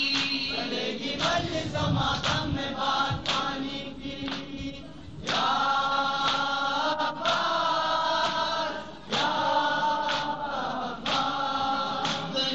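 A Shia noha (mourning lament) chanted unaccompanied by a male reciter with a group of mourners' voices, in long held lines. Sharp slaps of chest-beating (matam) come about every second or two.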